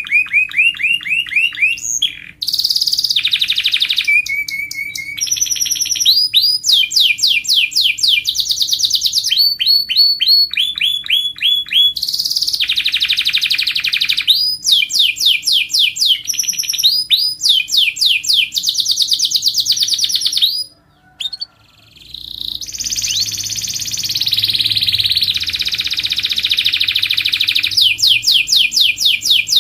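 Domestic canary in full song: a long, loud run of rapid trills and quickly repeated whistled note series, with a short pause about two-thirds of the way through.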